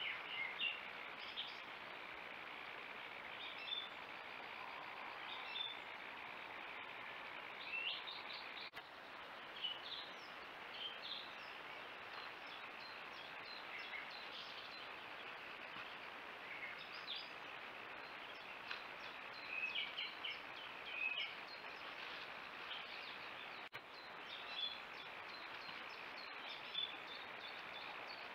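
Several birds chirping in short, scattered calls over a steady hiss; at this hour of a late-May night this is the start of the dawn chorus.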